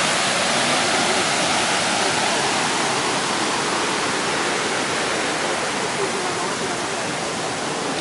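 Rushing water of a forest waterfall cascade on a mountain stream, a steady full hiss that grows a little fainter toward the end.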